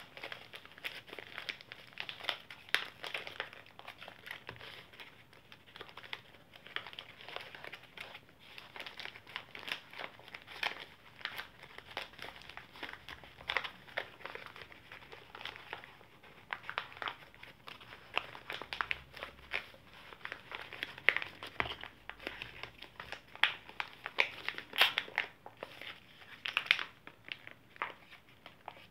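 Crinkling and rustling of small white packaging pouches being opened and handled, in irregular crackles throughout that get sharper in the second half.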